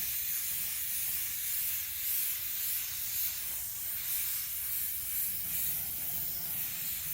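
Automotive paint spray gun hissing steadily on compressed air while spraying the first coat of base color.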